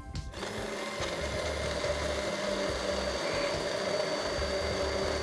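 Immersion (stick) blender running steadily in a tall beaker, whirring with a held tone as olive oil is streamed in to emulsify a pomegranate vinaigrette. It starts about a third of a second in.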